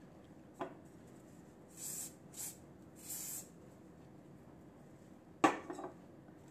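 An aerosol hairspray can giving three short hissing sprays, about two to three and a half seconds in, to set the gathered hair and catch stray baby hairs. Near the end comes one sharp knock.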